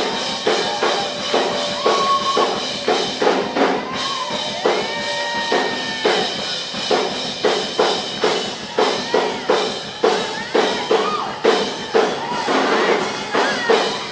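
Live worship music: a drum kit keeping a steady beat about twice a second under sustained instruments, with voices over it.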